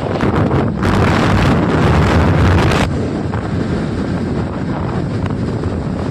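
Wind buffeting the microphone of a phone held up while riding a motorcycle. A stronger gust runs from about one to three seconds in.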